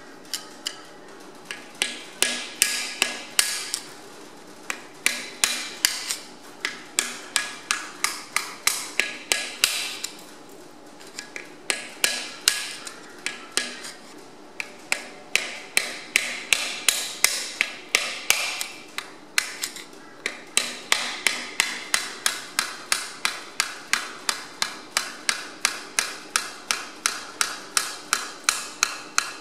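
Hammer tapping a screwdriver held against a cylinder liner of a Perkins tractor engine block, driving it down between liner and block to loosen the stuck liner. Sharp metallic taps about three a second, in runs broken by short pauses.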